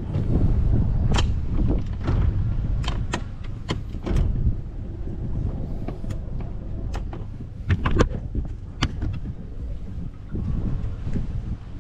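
A low rumble with a dozen or so sharp knocks and clicks scattered through it, aboard a small aluminium boat. The loudest knock comes about eight seconds in.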